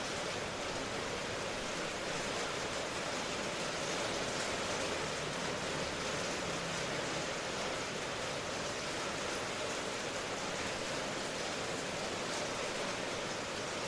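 Steady rain falling, an even hiss of noise with no distinct drops or thunder.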